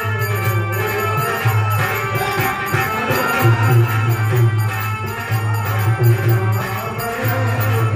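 Indian devotional folk music: a dholak drumming with jingling hand percussion over sustained pitched tones, playing continuously.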